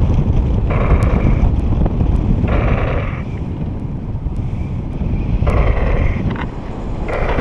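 Wind buffeting the microphone during paraglider flight. Short electronic tones, each about half a second long, sound four or five times at uneven intervals over the wind.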